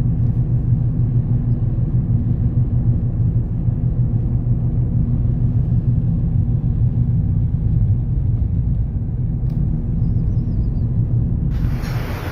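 A vehicle engine running with a steady low rumble. Near the end it cuts abruptly to a loud rushing hiss.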